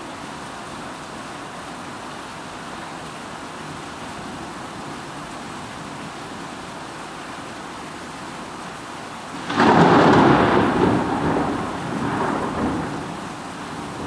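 Steady rain, then a sudden loud thunderclap about two thirds of the way through. The thunder rumbles on for about three seconds, swells a second time, and fades back into the rain.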